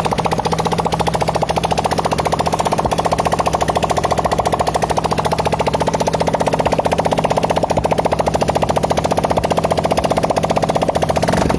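Motorcycle engine idling steadily, with a fast, even pulse of firing strokes.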